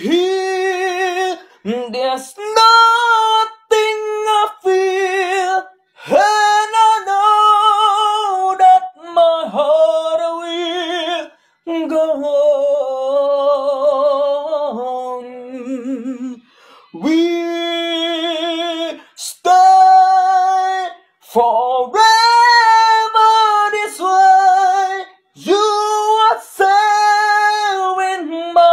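A single voice singing a high melody unaccompanied, with a wavering vibrato, in phrases of one to three seconds with short breaks between.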